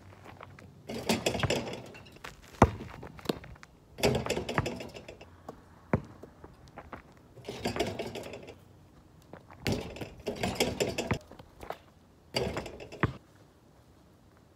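Backyard basketball play: bursts of crunching and rattling about every two to three seconds, with a few single sharp knocks from the ball.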